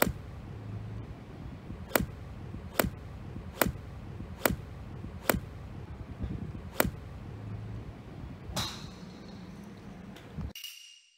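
Golf iron striking balls off a range mat: a string of sharp cracks about a second apart, then one more crack with a short ringing. The sound cuts off abruptly near the end.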